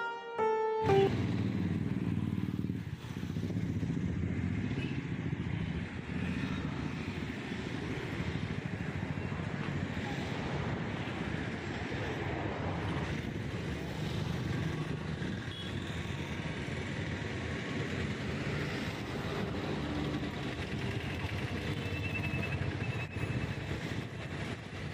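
Steady rumbling road and engine noise from a moving vehicle in traffic, heard from the vehicle as it drives along. Short plucked keyboard music cuts off about a second in.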